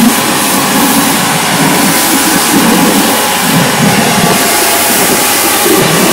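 Kärcher electric pressure washer running steadily, its water jet hissing under the rotary patio-cleaner head as it is pushed across wet paving slabs.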